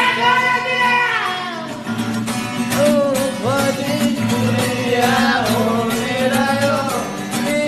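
A song playing: a high, meow-like vocal line holding long notes that sweep up and bend in pitch, over a steady low backing.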